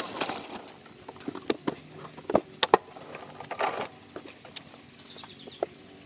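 Knocks, clicks and rattles of a Masport rotary push mower, engine off, being wheeled over a concrete footpath and brought to a stop. The loudest knocks come between about one and a half and four seconds in.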